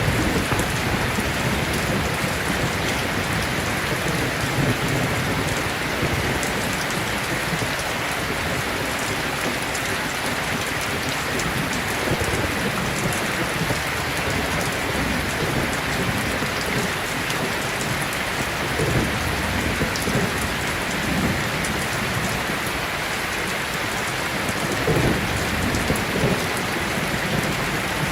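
Steady rain falling, a constant hiss with a few short low rumbles swelling through it.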